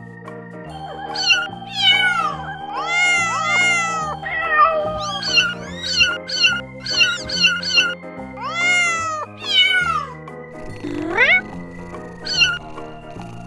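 Very young kittens mewing: a rapid run of thin, high, arching cries, several overlapping, with one longer rising call near the end. Background music plays underneath.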